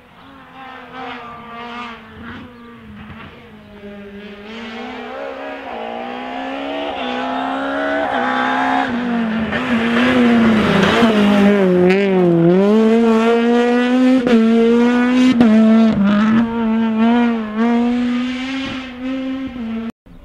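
Honda Civic Type R R3 rally car's naturally aspirated four-cylinder engine at full stage pace, approaching from far off and growing loud as it passes, its note rising and dropping with gear changes and lifts, then easing away before the sound cuts off abruptly near the end.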